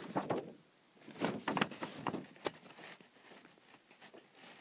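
A sheet of paper rustling and rubbing right against the camera's microphone, with scattered sharp clicks. It is loudest in the first two and a half seconds, then thins to faint ticks.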